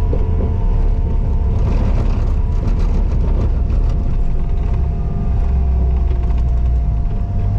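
Skid steer engine running hard under load, with a steady whine over it. A burst of rattling and clatter comes about two seconds in.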